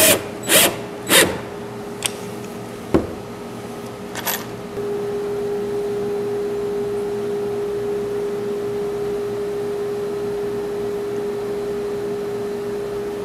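A DeWalt cordless drill drives a deck screw into a pine rib in three short bursts, followed by a few scattered knocks. From about five seconds in, a steady hum holds to the end.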